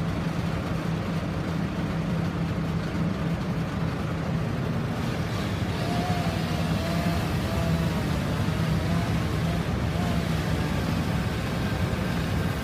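An engine running steadily at a constant speed, with a faint wavering tone over it from about halfway through.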